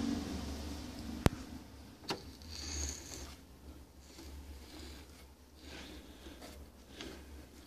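Quiet handling sounds: a gloved hand rubbing and turning a rough-turned wooden workpiece mounted in a homemade drill lathe that is not running. A sharp click about a second in and a softer knock a second later, over a low steady hum.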